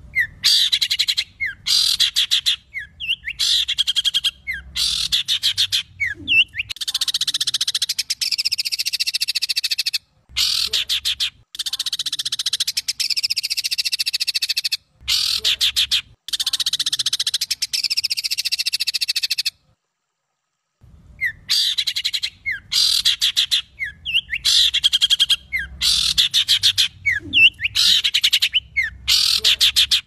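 A songbird's harsh, rapid song of sharp notes and long buzzy trilling runs, broken by sudden short silences. About two-thirds of the way through it cuts out for over a second, then the same opening phrases repeat, as in an edited, looped training recording.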